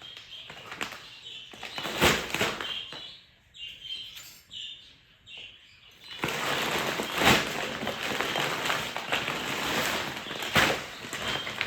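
Small cage birds chirping in short, high calls, with sharp knocks and clicks in between. From about six seconds a loud, steady rustling noise with occasional knocks covers the calls.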